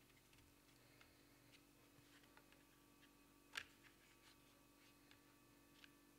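Near silence with a faint steady hum and scattered soft ticks, with one sharper click about three and a half seconds in: dry lasagna sheets being laid and pressed into a glass baking dish.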